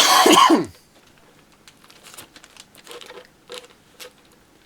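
Plastic model-kit parts being handled: a loud, brief scrape and rustle of plastic in the first second, then soft scattered clicks and rustles.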